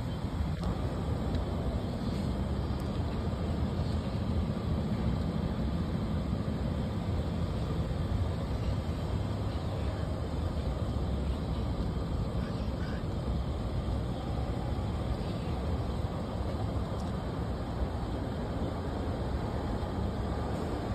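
Gas pump dispensing gasoline through the hose and nozzle into a truck's fuel tank: a steady, low rushing noise of fuel flow.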